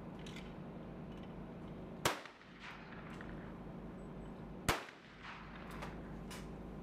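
Two shotgun shots, about two and a half seconds apart.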